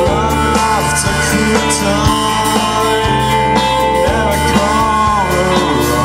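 Rock music with guitar, a steady beat and singing.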